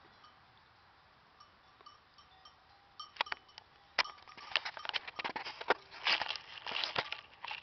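Dry leaves and twigs crackling and rustling as someone moves through dry undergrowth, starting about three seconds in and growing into a dense run of sharp crackles.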